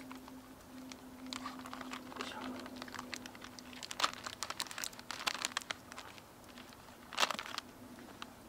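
Plastic vacuum-sealed bacon package crinkling and crackling as it is handled by hand, in runs of sharp crackles, with a louder crackle about seven seconds in.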